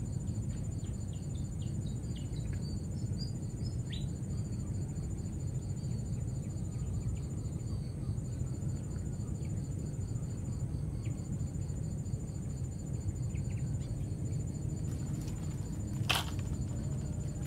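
Insects chirping steadily in an even, pulsing high-pitched trill with a thin continuous whine above it, over a constant low rumble. One sharp click about sixteen seconds in.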